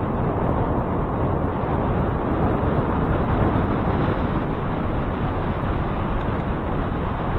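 Steady rushing wind noise on the microphone mixed with a low road and traffic rumble, as from a camera riding along on a bicycle.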